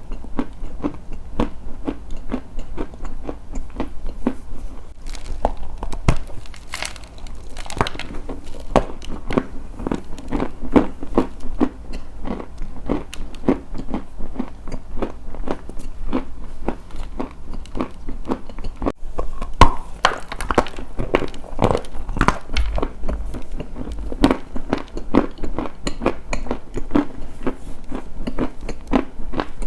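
Continuous close-up crunching: a dense run of small crisp cracks and crackles, several a second, steady throughout.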